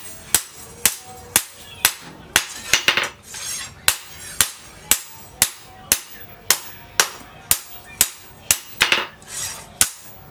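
Hand-forging with a hammer, striking steel on an anvil in a steady beat of about two blows a second. Each blow rings briefly, and there are a few quick double strikes.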